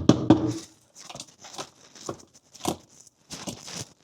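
Irregular scraping and rustling with a few short knocks, loudest at the very start: hands handling and working at parts.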